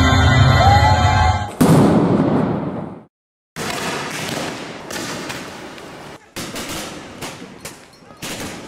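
Music with singing is cut off by a sudden loud bang about one and a half seconds in. After a brief silence comes noisy street-clash audio with several sharp cracks about a second apart: tear gas rounds being fired.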